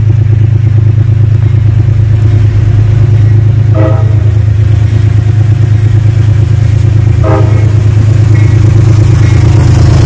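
Metro-North GE Genesis P32AC-DM diesel locomotive approaching and passing, its engine running with a loud steady low drone. Two short horn toots come about 4 and 7 seconds in.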